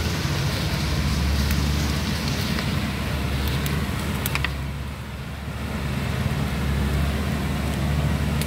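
Diesel engine of a two-axle truck loaded with logs, running steadily under load as it crawls forward on a dirt track, with a short easing-off about halfway through. A few sharp clicks come just before the dip.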